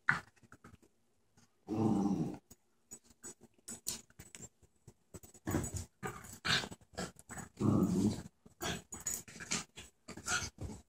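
Miniature schnauzer mother and puppies play-fighting, growling in short bursts, the longest about two and eight seconds in, with quick scuffling and clicks in between.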